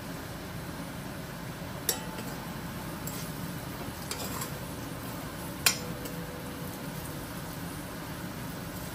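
A metal spoon stirring and knocking against a metal cooking pot of frying curry, with two sharp clinks about four seconds apart, the second the loudest, and a few lighter scrapes between, over a steady low hum.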